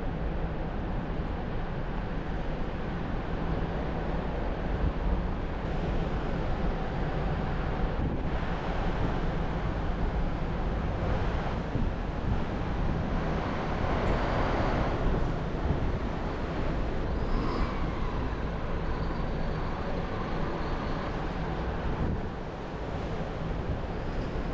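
Triumph Street Triple 765 RX's inline-three engine through an aftermarket SC Project S1 exhaust, running steadily at cruising speed, with wind rushing over the onboard microphone. The sound swells louder for a couple of seconds about halfway through.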